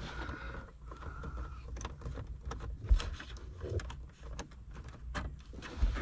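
Light, irregular clicks and knocks of a socket wrench turning out a small 7 mm screw from plastic dash trim, over a low steady hum.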